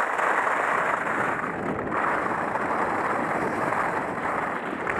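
Steady rush of wind over the camera's microphone, mixed with the hiss of skis sliding over snow during a downhill run.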